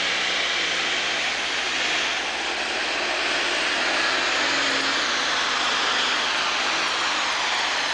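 John Deere super stock pulling tractor's turbocharged diesel engine running flat out under the full load of the pulling sled, a loud steady engine noise topped by a high, held turbocharger whine.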